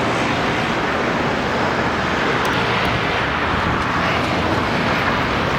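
A jet airliner passing overhead: a steady rushing noise that swells a little midway.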